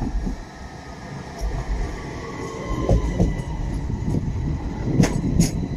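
Tvärbanan light-rail tram pulling into a platform: steel wheels rumbling on the rails, growing louder as it draws alongside, with a faint falling whine as it slows and two sharp clacks near the end.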